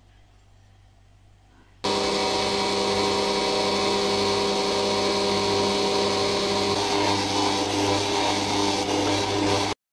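Stand mixer's motor running steadily with a whine as its dough hook kneads flour into a yeast dough. It starts suddenly about two seconds in, the pitch of the whine shifts about two-thirds of the way through as the dough comes together, and it cuts out for a moment near the end.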